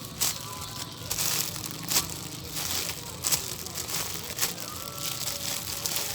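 Irregular crinkling and rustling of plastic wrapping as squishy toys are handled.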